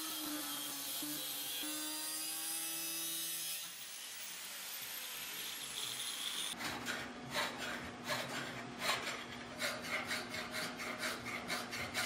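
Angle grinder running as it grinds the steel knife blank, a steady whine with hiss that stops about three and a half seconds in. After a quieter stretch, a hand file rasps across the steel blade in quick back-and-forth strokes, about three a second, over a faint steady hum.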